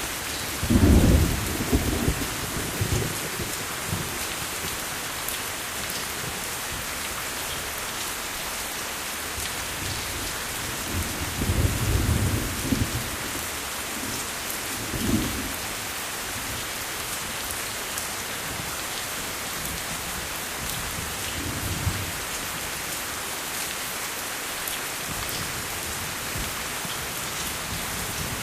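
Steady rain falling, with low rumbles of thunder rolling over it: the loudest about a second in, another midway, and two fainter ones later.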